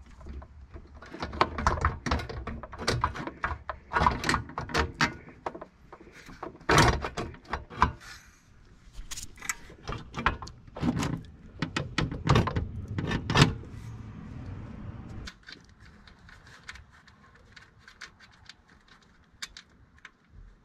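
Irregular knocks, clunks and scrapes of a 12-volt portable air compressor being handled and shifted into place on its mount. The knocking is busiest in the first dozen seconds and thins out after about fifteen.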